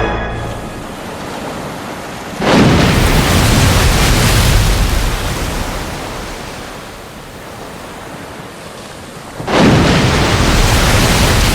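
Film sound effects of heavy sea water crashing and surging. Two sudden loud rushes come in, one about two and a half seconds in and another near the end, and each dies away slowly.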